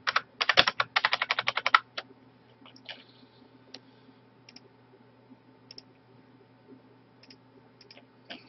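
Rapid typing on a computer keyboard for about two seconds, then a few scattered faint clicks of a computer mouse, over a low steady hum.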